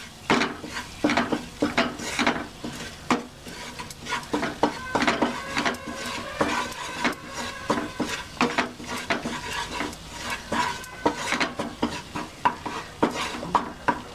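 Wooden spatula scraping and knocking against a non-stick kadai in repeated strokes, about one or two a second, while butter and maida (refined flour) sizzle as they are roasted into a roux on low flame.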